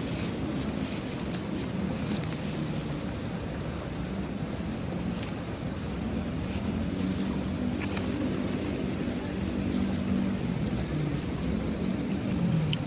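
Insects trilling in one steady, high-pitched tone, over a low wavering hum and a few faint clicks.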